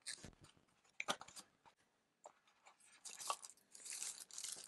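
Faint handling of a small cardboard product box and its packaging: scattered light clicks and rustles, then a longer crinkling rustle near the end as a thin wrapping is peeled off the small recorder.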